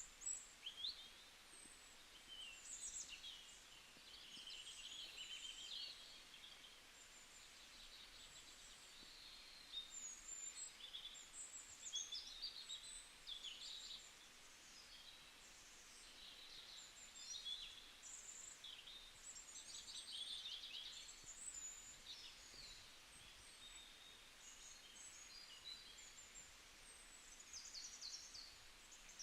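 Faint birdsong: many small birds giving short high chirps and trills, overlapping, over a low steady outdoor hiss.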